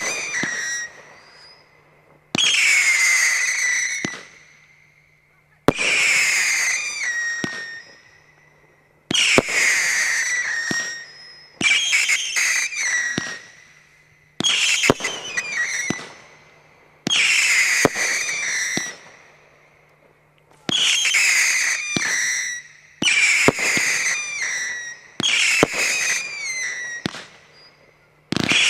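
Consumer fireworks cake (Ammo Crate) firing shot after shot, about one every one to three seconds and sometimes two in quick succession. Each is a sharp pop followed by a whistle that falls in pitch and settles before fading.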